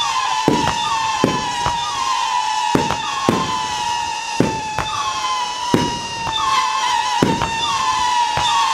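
Titanium Salute Scream fireworks battery firing shot after shot: overlapping high whistling screams, each falling slightly in pitch, with sharp titanium salute bangs about once a second.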